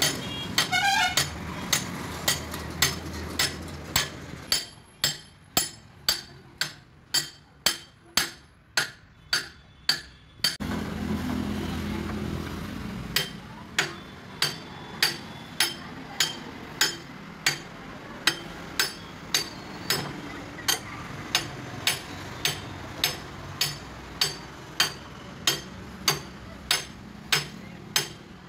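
Hand hammer striking a steel drift against a JCB 3DX backhoe's bucket pin to drive it out of the linkage: sharp, ringing metal-on-metal blows about two a second. There is a pause of a couple of seconds near the middle, filled by a low hum.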